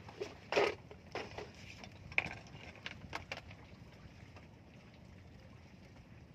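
Short knocks and rustles of fishing gear being handled on a bamboo deck, a string of them in the first few seconds with the loudest about half a second in and a sharp click about two seconds in, over a steady low rumble of wind.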